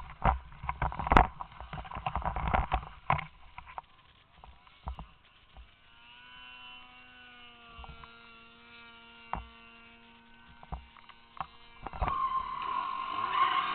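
Snowmobile engines: a faint, steady drone holding one pitch from a sled running on the slope, after some knocks and rattles at the start. Near the end a closer snowmobile engine comes in louder and begins to rev up.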